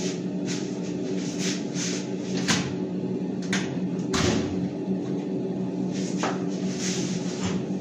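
Kitchen handling sounds: a large aluminium pot clunking down onto another pot and a wall cupboard door being worked, a string of knocks and clunks with the loudest about four seconds in, over a steady mechanical hum.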